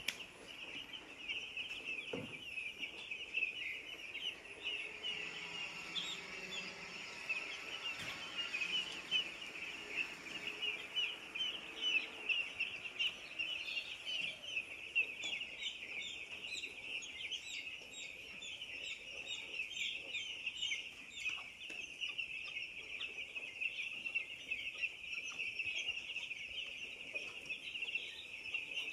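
A flock of broiler chickens peeping and cheeping continuously, many short high calls overlapping.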